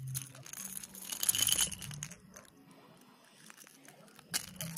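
Handling noise from unhooking a small largemouth bass held in a lip gripper: clinks and rattles of the topwater lure's treble hooks and rattle chamber. There is a longer rustling burst about a second in and a sharp knock near the end.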